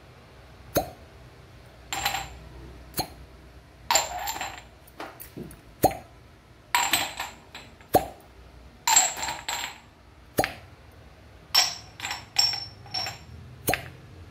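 Glass cupping cups being pulled off a back one after another, with a sharp pop as each suction seal breaks. Glass cups clink and ring as they knock together, about a dozen sharp sounds in all.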